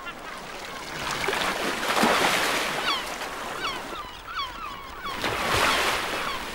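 Seawater rushing and splashing as humpback whales lunge-feed at the surface, with gulls giving many short calls overhead from about a second in.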